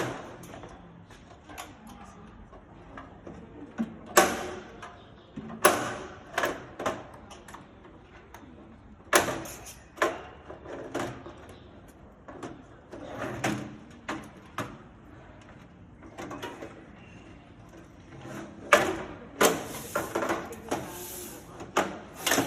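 Irregular clicks, knocks and rattles of a desktop computer's power supply and case parts being handled and worked loose. They come at uneven intervals, with sharper knocks about 4, 5½, 9, 10 and 19 seconds in.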